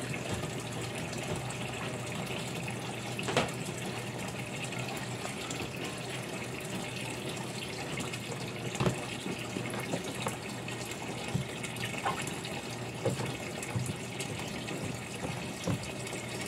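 Water running steadily into a twin-tub washing machine's wash tub as it fills for a rinse, with a couple of faint knocks.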